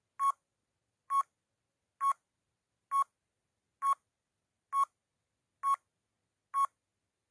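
Quiz countdown timer beeping once per count: eight short electronic beeps, a little under a second apart, with the last one near the end.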